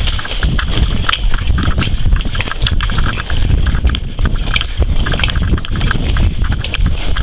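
Hurried footsteps over rocky ground with scattered sharp knocks, under a heavy, constant rumble of wind and movement on the microphone.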